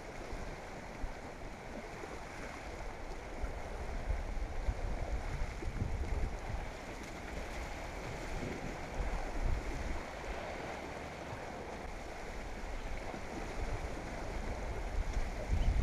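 Sea waves washing against a rocky shore, a steady wash of water noise, with wind buffeting the microphone in irregular low gusts that grow stronger near the end.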